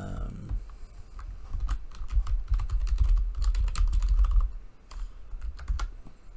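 Typing on a computer keyboard: a quick, irregular run of key clicks for several seconds, over dull low thumps that are the loudest part.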